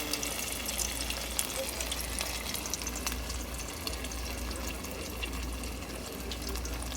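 Battered trout fillet frying in hot grease in a pan: a steady sizzle with many fine crackles and pops.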